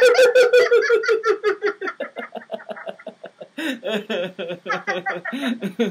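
Two people laughing deliberately in a laughter yoga exercise. A high-pitched laugh runs in rapid, even "ha-ha" pulses, slowly falling in pitch and fading over the first two seconds, and a second, lower laugh joins about three and a half seconds in.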